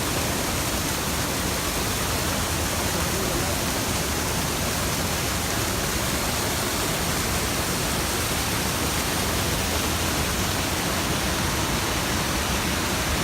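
Steady rushing noise without breaks or changes, spread evenly from low to high pitches.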